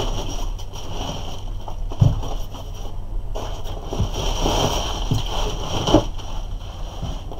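Plastic packing film crinkling and rustling as it is pulled off and handled, with a few short knocks as the foam packing tray is moved, about two seconds apart.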